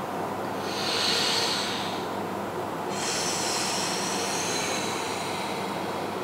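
A person breathing audibly in slow, deliberate qigong breaths: one breath starting just under a second in and lasting about a second and a half, then a longer, drawn-out breath from about three seconds in, over a steady background hiss.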